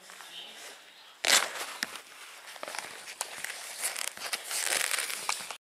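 A sudden thump about a second in, then irregular rustling and crackling with scattered sharp clicks, which stops abruptly near the end.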